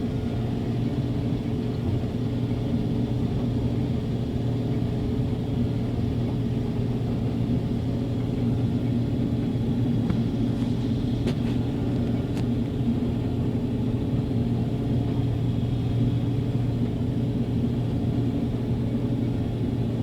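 Combine harvester running steadily while cutting wheat: a constant engine drone, with a few faint clicks about halfway through.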